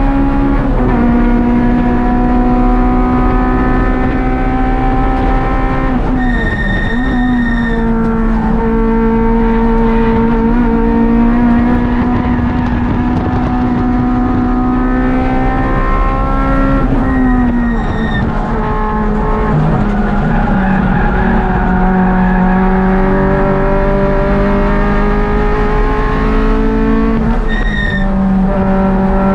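Race-prepared Honda Civic's swapped K24 2.4-litre four-cylinder engine, heard from inside the cabin, running hard at speed with its pitch climbing slowly. Three times, about 6, 17 and 28 seconds in, the engine note drops as the car slows for a corner and the tyres squeal briefly with a high whistle.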